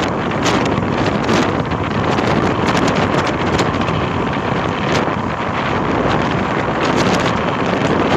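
Strong wind buffeting the microphone of a camera on a moving motor scooter: a loud, steady rush with many quick gusty flutters.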